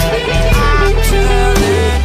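Background rock music with guitar, bass and drums, with drum hits about twice a second.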